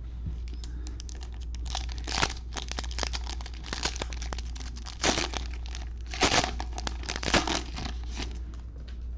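Plastic trading-card pack wrapper (a Panini Mosaic football bonus pack) torn open and crinkled by gloved hands: a dense crackle with several louder rips.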